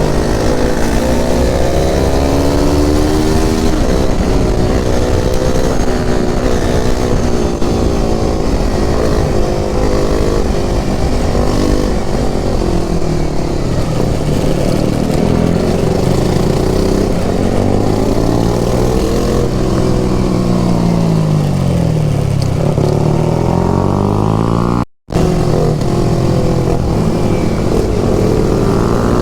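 Motorcycle engine under way, its pitch climbing and falling repeatedly as it accelerates and eases off, over a steady low wind rumble. The sound cuts out for an instant a few seconds before the end.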